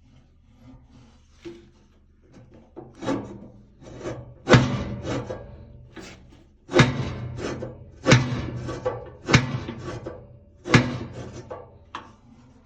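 Handling at a wood stove, with wood and metal knocking: a series of sharp knocks, five of them loud, with scraping and rubbing in between.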